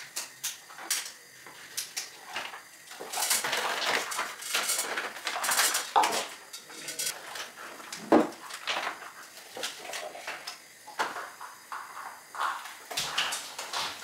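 A plastic cup knocking and scraping in a pot as blended bean batter is scooped and poured into moi moi pouches, with plastic pouches rustling. Irregular clicks and short swishes, loudest near the middle.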